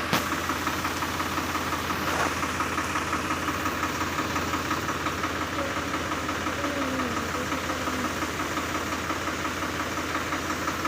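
A combine harvester's engine running steadily with an even, rhythmic pulse. A single sharp click comes just after the start.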